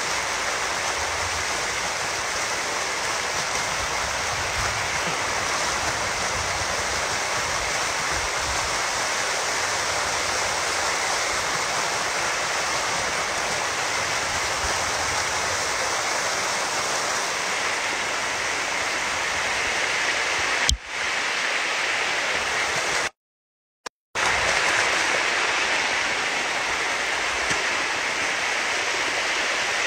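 Storm runoff rushing down a rocky desert arroyo, a steady loud roar of water close to the microphone. About two-thirds through there is a sharp knock, the sound cuts out completely for about a second, and then the rush comes back.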